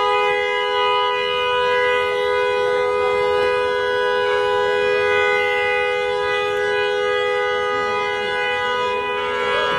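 Car horn held down in one long, unbroken note, two tones sounding together at a steady pitch, with faint crowd voices beneath.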